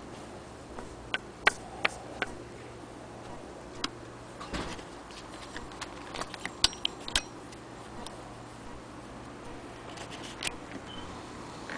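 Scattered, irregular clicks and taps from handling a Singer Model 66K hand-crank sewing machine: its crank attachment and handwheel are being touched and moved, not run. The loudest clicks come about a second and a half in and around seven seconds, over a faint steady hum.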